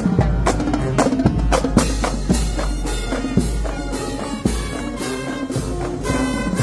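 Marching band playing on the move: snare and bass drums beating a steady rhythm under trumpets and other brass carrying a tune.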